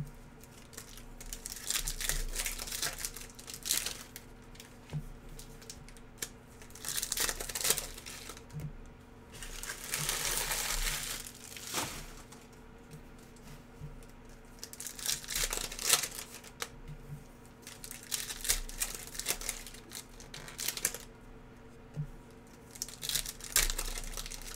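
Wrappers of Panini NBA Hoops trading card packs crinkling and being torn open in short, irregular bursts, with a longer stretch of crinkling about ten seconds in.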